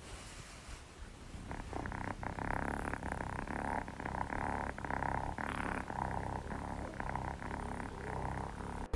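A domestic cat purring steadily and rapidly, starting about a second and a half in.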